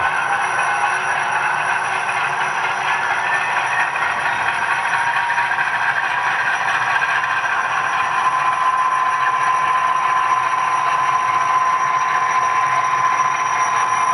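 HO scale sound-equipped diesel locomotives running past, their LokSound decoders playing a steady diesel engine sound from small onboard speakers, mixed with the running noise of the model coal train on the track. A steady high tone joins in about halfway through.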